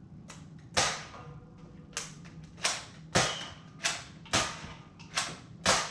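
Nerf Dual Strike foam-dart blaster being primed, fired and reloaded in quick succession: about eight sharp plastic clacks and pops at irregular intervals, with lighter clicks between them.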